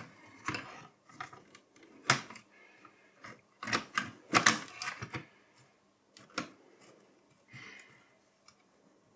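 Irregular clicks and light taps of a small PC motherboard being set down and shuffled into place in its sheet-metal mini-PC chassis. The clicks come thickest in the middle and thin out to a few faint ones near the end.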